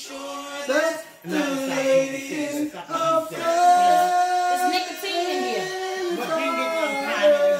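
Singing with music: a sung melody that holds long notes and slides between pitches.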